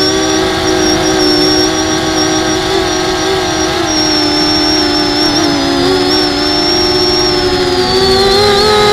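Small FPV racing quadcopter (250 mm class): its four brushless motors and propellers whine steadily in several overlapping tones, with the pitch wavering and shifting near the end.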